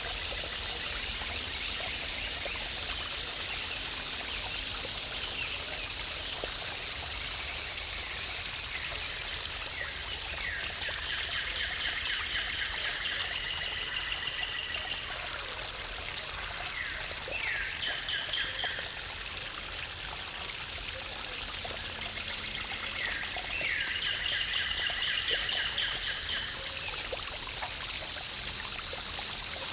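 Waterfall rushing steadily, with a songbird singing a rapid trilled phrase three times, about ten, seventeen and twenty-three seconds in.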